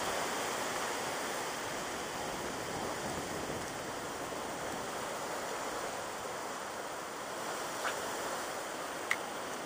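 Hurricane wind rushing steadily through palm trees and bushes, a constant roar of noise with no let-up. Two faint short ticks come near the end.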